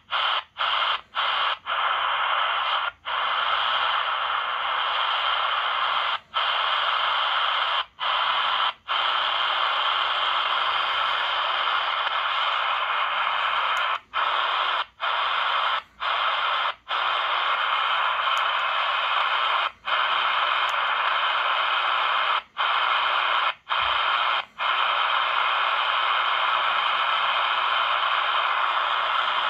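Shortwave static hissing from the speaker of a Hanrongda HRD-747 receiver. It cuts out briefly about fifteen times as the receiver is stepped from frequency to frequency.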